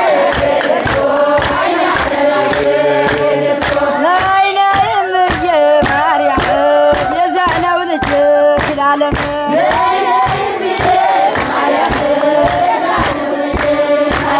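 A crowd, mostly women, singing an Ethiopian Orthodox religious chant together, with steady rhythmic handclapping.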